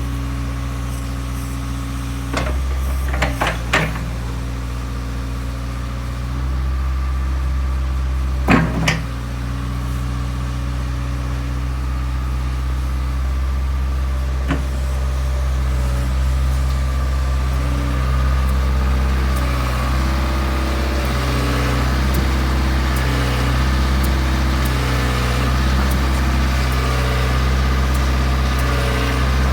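Diesel engine of a JCB 8080 midi excavator running steadily, with a few sharp clunks about 3 to 4 seconds in and again near 9 seconds. In the second half it gets a little louder, and its note shifts up and down in steps.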